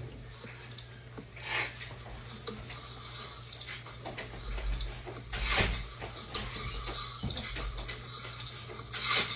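Light handling noises: three brief rustles or clinks, about a second and a half in, midway and near the end, over a low steady hum.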